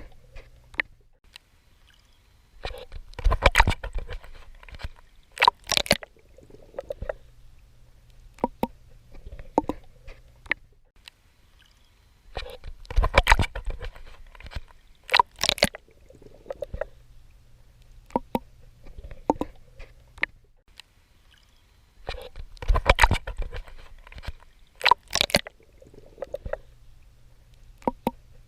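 Water splashing and sloshing from a swimmer's strokes. The same splashy burst with sharp crackles comes back about every ten seconds, three times, with fainter sloshes and drips in between.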